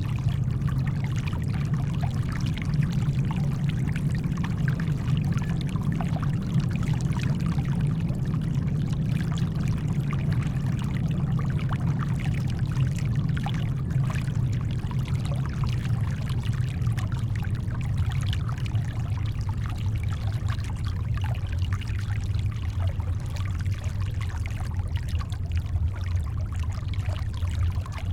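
Steady brown noise, deep and even, layered with shoreline water washing and trickling, with many small splashes in it.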